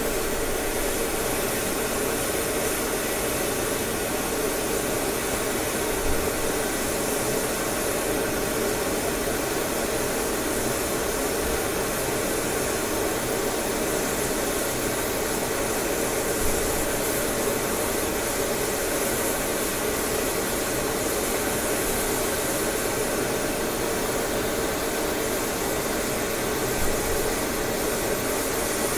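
Multi-flame oxyacetylene fusion torch burning with a neutral flame, a steady rushing noise, as it fuses a sprayed alloy powder coating.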